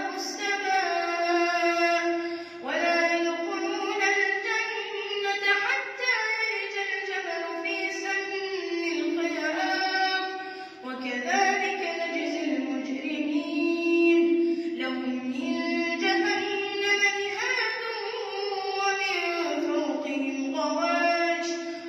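A boy reciting the Quran in the melodic tajweed style, his high voice drawing out long, ornamented phrases with gliding pitch. He pauses briefly for breath about three seconds in and again about ten and a half seconds in.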